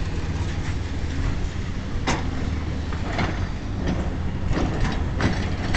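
Wind buffeting the camera's microphone as a steady low rumble, with a series of soft knocks about every half second from roughly two seconds in.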